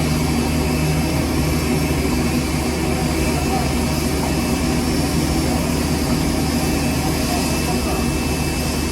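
Boeing 787-8 jet airliner's engines running with a steady, unchanging drone and a low hum underneath.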